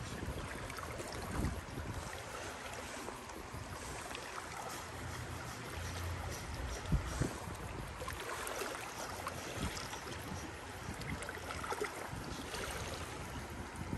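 Small waves lapping and splashing against shoreline rocks, with wind buffeting the microphone as a low rumble and a few handling knocks.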